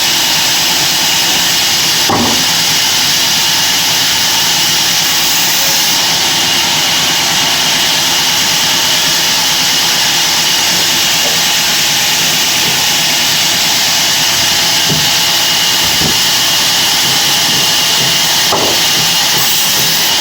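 Sawmill bandsaw machine running with a steady, high hiss, with a few short knocks.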